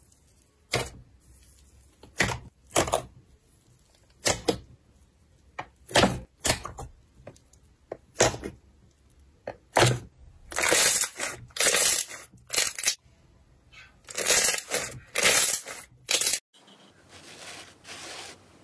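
Hand squeezing and poking bubbly, air-filled slime: a run of sharp crackling pops and squelches, at first about one a second, then coming thicker and louder in the second half. Near the end it gives way to a much quieter, softer rubbing of glitter slime.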